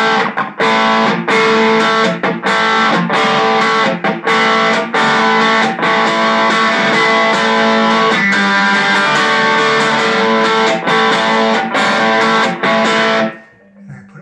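Telecaster-style electric guitar played through a small Boss Katana Mini amp on its crunch channel, mildly overdriven strummed chords with short breaks between them. The playing stops about a second before the end.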